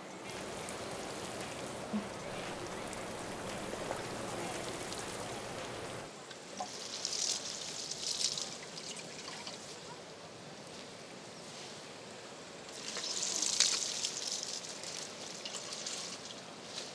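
Watering can sprinkling water onto garden plants, in two spells of splashing patter a few seconds apart, the second louder. Before them, a steady hiss cuts off abruptly about six seconds in.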